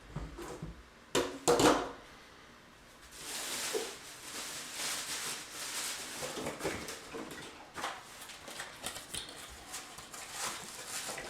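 Hard plastic parts knocking together twice, sharply, then a long stretch of rustling and small clicks as plastic packaging and vacuum components are handled.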